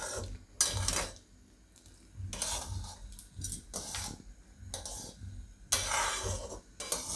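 A flat metal spatula scrapes and stirs thick wheat-flour porridge around a metal kadai, in about five separate strokes with short pauses between them.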